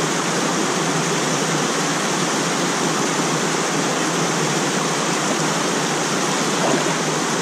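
Water of a small stream rushing steadily over stones, a constant even rush of running water.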